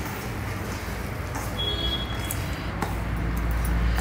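Hands mixing finely chopped cabbage, beetroot, carrot, onion and mashed potato with spices in a steel plate: a soft, steady rustling and squishing, over a steady low hum.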